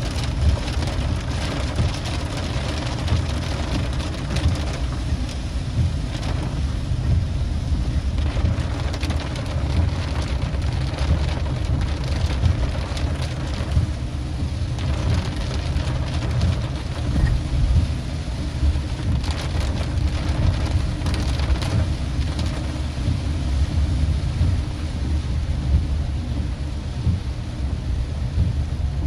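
Heavy rain pattering on a car's windshield and roof, heard from inside the cabin, over a steady low rumble of the car running on the wet road.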